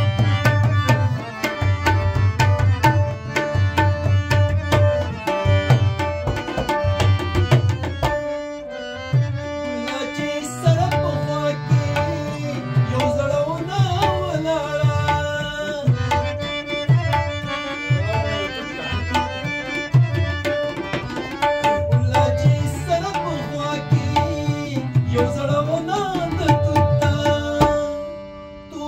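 Tabla and harmonium playing together: the harmonium sustains held reed chords and melody while the tabla keeps a steady rhythm of deep bayan strokes and sharp dayan strokes. The tabla drops back briefly about eight seconds in, then resumes.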